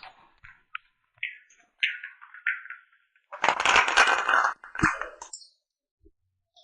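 Glass cupping cups being handled with short clinks and knocks. About three and a half seconds in comes a louder rush of noise lasting just over a second, then a shorter one with a dull thump.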